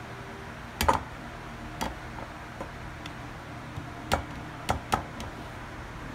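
A plastic food-processor bowl knocking against a ceramic mixing bowl as shredded cheddar is tipped and shaken out. There are about five sharp knocks: the loudest about a second in, one near two seconds, and a cluster between four and five seconds.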